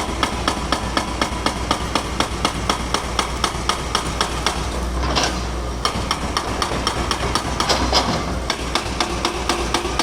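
Powered breaker hammering concrete during bridge demolition, a rapid, even run of blows at about five a second over a steady engine drone. Two short hissing swells come in about halfway through and again near the end.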